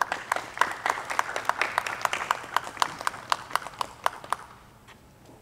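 Brief applause from a small audience, the separate claps distinct rather than blended, thinning out and stopping about four and a half seconds in.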